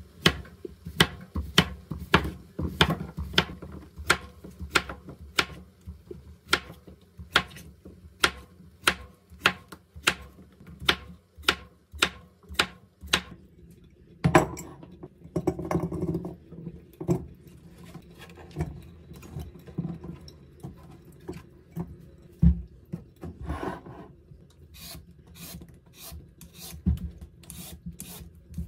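Cleaver slicing cucumbers on a wooden cutting board, a steady chop about twice a second, each cut knocking through to the board. About halfway a louder knock and a few seconds of handling noise, then near the end the short scraping strokes of a vegetable peeler on a radish.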